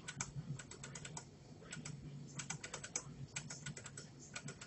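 Electronic skill-game slot machine running through its free bonus spins: quick clusters of sharp clicks, several to a cluster, as the reels spin and stop one after another, over a low steady hum.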